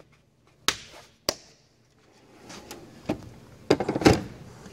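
Two sharp plastic clicks about half a second apart as the lid of a plastic bit-set case is snapped shut, then a clatter of knocks near the end as a steel tool box drawer is handled.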